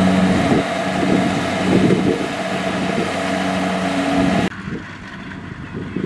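Kubota DC70 rice combine harvester's diesel engine and threshing machinery running steadily at close range. About four and a half seconds in, the sound drops suddenly to a fainter, more distant engine hum with wind rumbling on the microphone.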